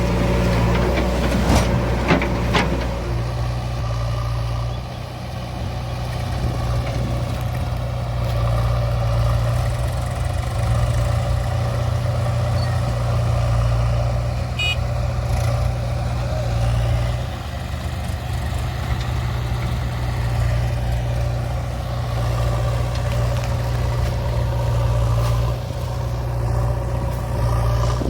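Heavy diesel engine running steadily under load, with a few knocks about two seconds in and a brief high beep about halfway through.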